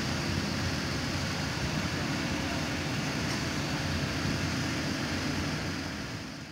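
Steady background noise, a dense even rush with a low rumble, fading out near the end.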